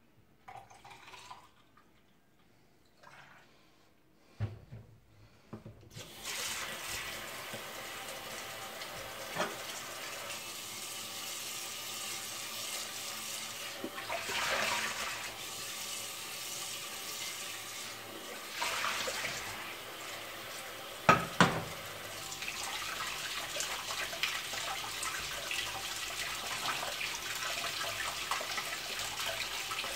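Kitchen tap running into a stainless-steel sink, filling a metal pot with water. It starts about six seconds in and runs steadily, with a few clunks of metal cookware and a sharp double knock about two-thirds of the way through.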